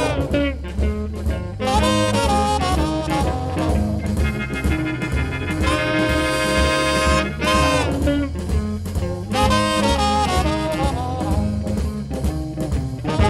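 Live jazz band playing a boogie-woogie blues number: horns play held chords and riffs over a steady bass and drum beat.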